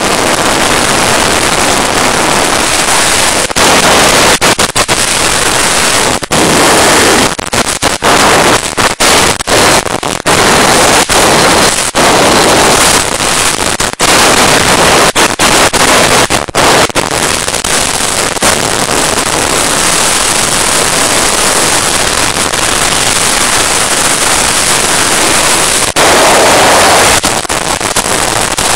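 Wind rushing over a phone's microphone and overloading it, on a Honda NX4 Falcon single-cylinder motorcycle ridden flat out at high speed. The sound cuts out again and again in brief gaps between about 3 and 17 seconds in.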